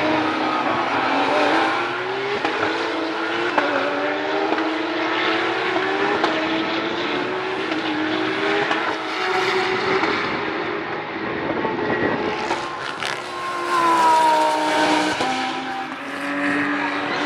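GT race cars at racing speed, several engines revving high with the pitch climbing and dropping through gear changes as they go by. One car passes loudly about three-quarters of the way through, its note falling as it goes.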